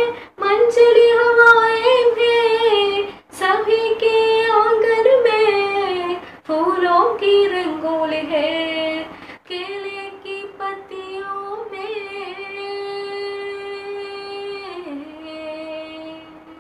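A girl singing a Hindi song solo, in phrases with short breaks for breath between them. Near the end she holds one long note for about three seconds, then steps down lower before it stops.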